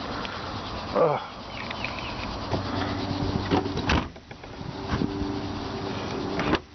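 Two sharp clicks from the Astro van's rear window latch being worked without releasing the glass, because the actuating rod has slipped out of place for want of its clip. A steady hum and a short call are heard with the clicks.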